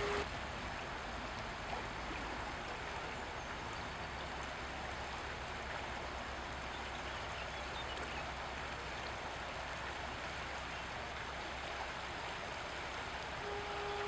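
A steady rushing, water-like hiss with a faint low rumble beneath. About half a second before the end a fog horn starts a steady low blast.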